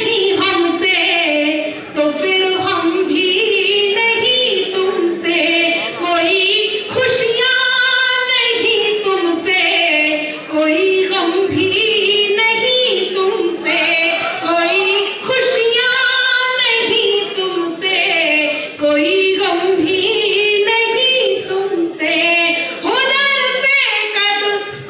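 A woman singing a Hindi poem solo into a microphone, in long held phrases with a wavering pitch and brief pauses between lines.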